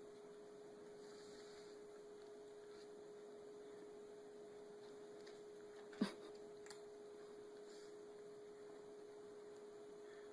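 Near silence with a faint steady hum on one tone, broken by a single short click about six seconds in.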